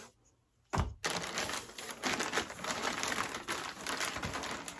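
A single thump just under a second in, then continuous crinkling and crackling of packaging as an accessory is unwrapped.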